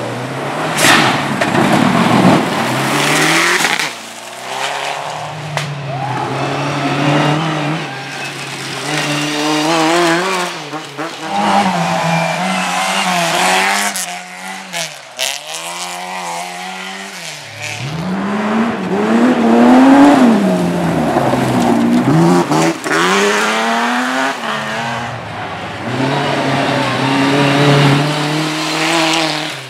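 Racing cars' engines revving hard, rising and falling through gear changes and as cars pass, one after another.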